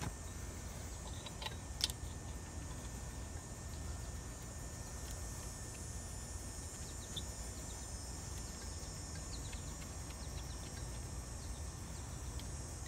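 Steady low hum and high hiss, with a sharp click about two seconds in and a few faint ticks as the yellow charging hose's brass fitting is handled and screwed onto the refrigerant manifold gauge set.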